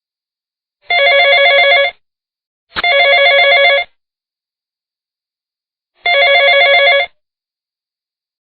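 iPhone ringtone in the style of an old telephone bell: a fast trilling ring in bursts of about a second, three times, the first two close together. A sharp click comes at the start of the second ring.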